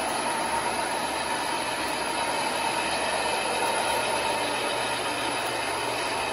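MTH O-gauge operating car wash accessory running: a steady mechanical hum with a constant hiss, with no pauses or changes.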